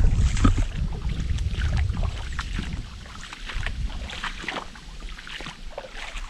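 Footsteps and rustling of a person walking over rough ground in the bush: irregular crunching steps, with a low rumble of wind or handling on the microphone that is strongest in the first couple of seconds.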